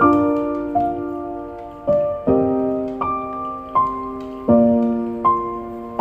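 Background piano music: slow notes and chords, a new one struck about every three-quarters of a second and left to fade.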